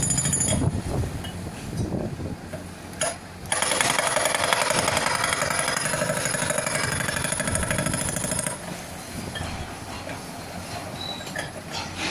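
Hydraulic rock breaker on a Bull HD76 backhoe loader hammering rock in a fast, steady chatter, with a short bout at the start and a long run from about three and a half to eight and a half seconds in. The loader's diesel engine runs underneath throughout.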